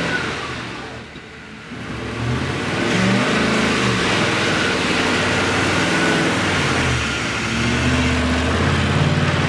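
A motor vehicle's engine running and accelerating. Its level dips about a second in, then it picks up again, with its pitch rising twice.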